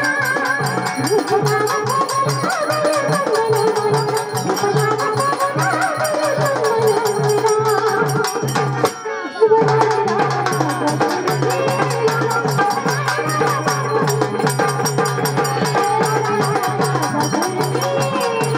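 Traditional Marathi folk music: a voice singing a wavering melody over drum beats and a steady low drone. The sound dips briefly about halfway through.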